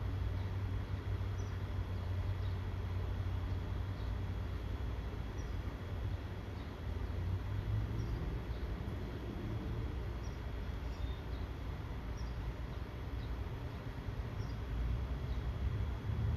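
Rural outdoor ambience: a steady low rumble with small birds chirping briefly here and there throughout.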